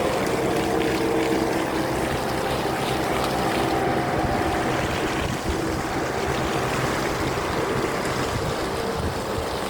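Water fountain splashing steadily, with a low hum underneath.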